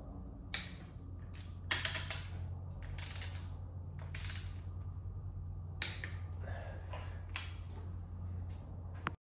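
Torque wrench tightening cylinder-head nuts on the head studs of a Subaru EJ22 engine: separate sharp metallic clicks every second or so, one a quick run of ratchet ticks, over a low steady hum.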